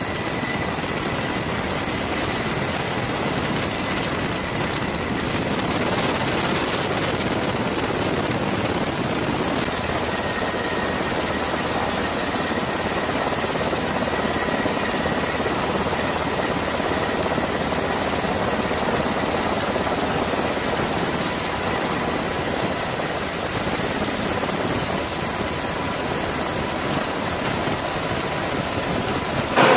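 Jet engines of a formation of fighter aircraft running at taxi power: a steady roar with faint, thin high whine tones and no break.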